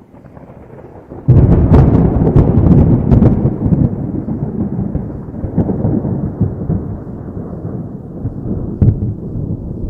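Thunder: a faint low rumble, then a sudden loud clap just over a second in with sharp crackling peals, rolling off into a long rumble that slowly fades, with another sharp crack near the end.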